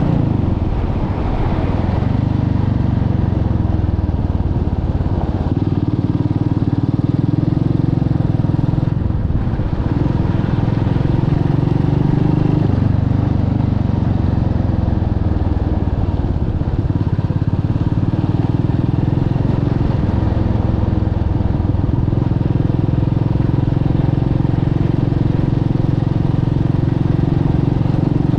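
Motorcycle engine running while riding, its pitch dipping and climbing again several times.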